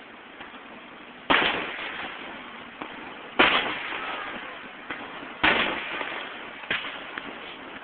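Fireworks shells bursting overhead: three loud bangs about two seconds apart, with a few fainter pops between them. Each bang trails off in a fading rumble.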